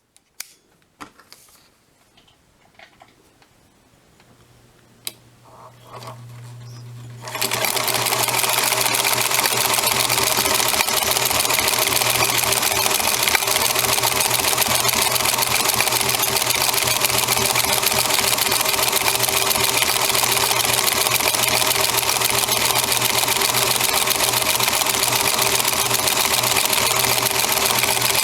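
Singer 222K sewing machine fitted with a zigzag attachment, stitching steadily at speed. A few light handling clicks come first, the motor hum comes up about six seconds in, and the machine starts running about a second later.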